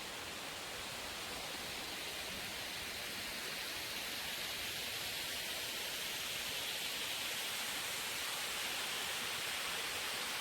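Waterfall's falling water rushing with a steady hiss, getting slightly louder towards the end.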